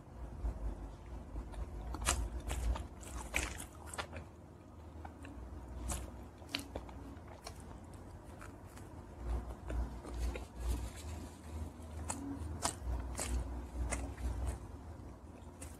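Close-miked mouth sounds of a person biting into and chewing roasted chicken wings, with irregular small clicks from the chewing.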